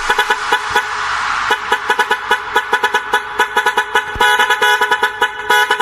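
A truck-horn sample chopped into rapid, rhythmic stuttering blasts as part of an electronic dance remix, with the bass dropped out.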